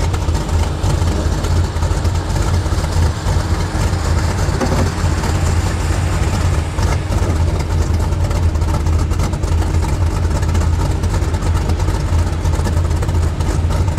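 Lifted 4x4 truck engines running at low idle-to-crawl speed, a steady deep rumble as the trucks creep through deep snow.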